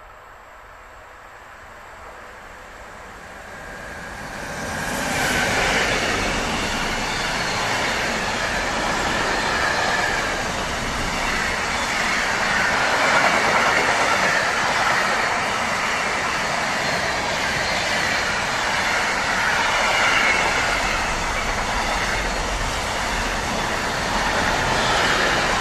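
Container freight train, headed by an electric locomotive, approaching and passing close by at speed. The sound swells over the first five seconds as the locomotive arrives, then the container wagons run past in a steady loud rumble and rush of wheels on rail.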